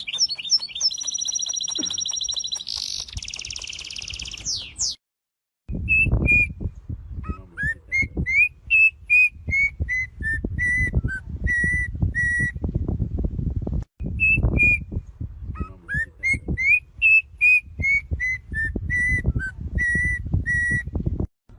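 Bird song. A fast, high, trilling song for the first five seconds, then a short gap, then a run of clear whistled notes that is heard twice over with a low rumbling background.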